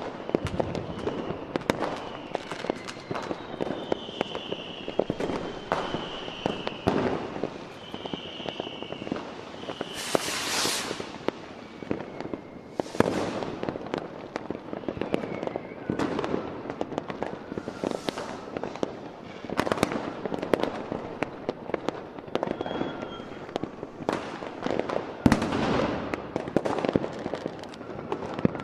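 Aerial fireworks shells bursting in a steady run of bangs and crackles. High whistles sound through the first several seconds, a long hissing rush comes about ten seconds in, and the loudest bang falls a few seconds before the end.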